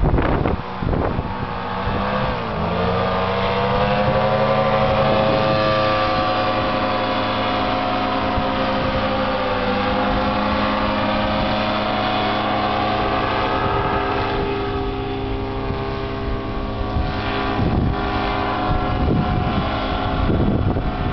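Paramotor engine and propeller running hard through takeoff and climb-out: a steady buzzing drone whose pitch dips briefly about two seconds in, then recovers, and sags slightly again about ten seconds in.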